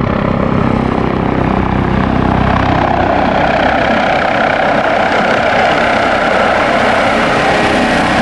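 Airbus H145M twin-turbine military helicopter flying low and close, its rotor beating and turbines running in one loud, steady sound that grows brighter from about halfway through.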